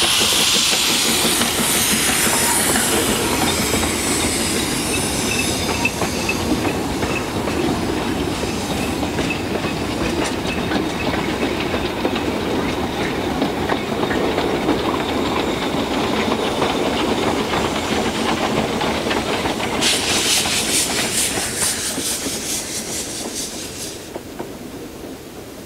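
Narrow-gauge steam train passing: hissing steam from the locomotive at first, then the coaches rumbling and clicking over the rail joints. About twenty seconds in comes a burst of hissing with quick beats, and the sound then fades as the train moves off.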